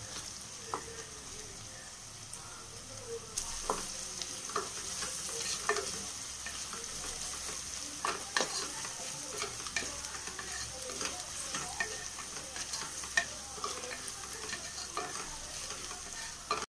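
Sliced onions sizzling in hot oil in an aluminium pressure cooker, sautéed over a medium flame, as a wooden spatula stirs them. The spatula's scrapes and knocks against the pot come irregularly over the steady sizzle.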